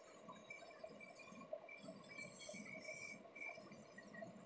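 Faint machine-shop background with scattered light metallic clinks.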